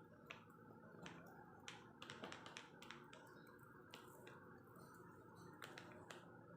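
Faint, crisp crunches and clicks of French fries being bitten and chewed close to the microphone, irregular and several a second, over a low steady hum.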